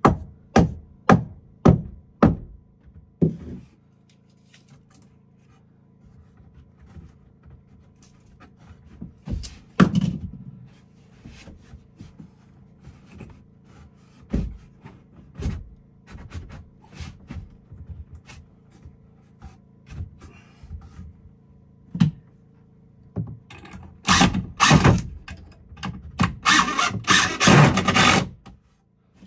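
Hand carpentry on wood: a quick run of about six sharp knocks at the start, scattered knocks and thuds, then a loud stretch of rapid rasping strokes near the end.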